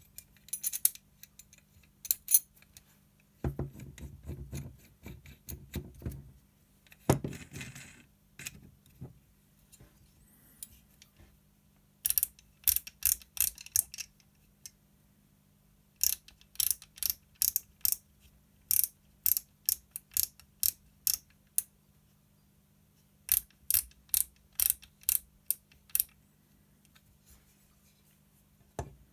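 Handling of a rifle carry handle with rear sight: rustling and knocks, then several runs of sharp, evenly spaced clicks at about two to three a second, with a faint steady low hum underneath.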